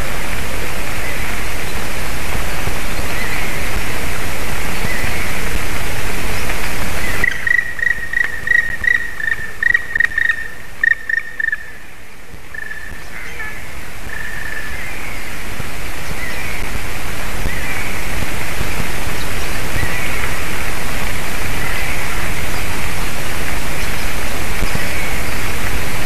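A black woodpecker calling a rapid series of about a dozen ringing notes, two to three a second, then a few fainter ones, over a steady hiss that dips as the calls begin and slowly returns.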